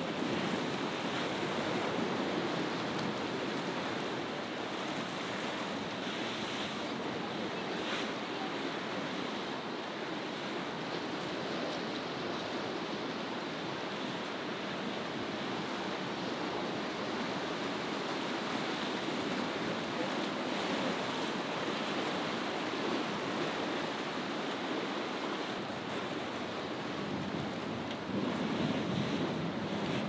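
Rough, choppy sea with breaking waves and wind buffeting the microphone, a steady rushing that swells a little near the end.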